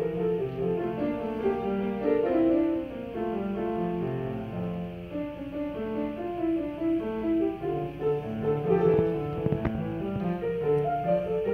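Grand piano played solo: a classical piece in a continuous stream of quick notes.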